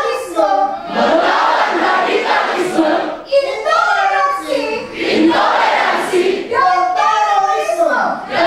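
A large group of voices chanting in unison, in loud phrases a second or two long with short breaks between them.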